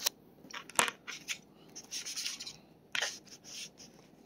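A metal fork cutting into soft biscuits on a paper plate, tapping and scraping the plate. There are three sharp clicks, at the start, a bit under a second in and about three seconds in, with a short scrape between them.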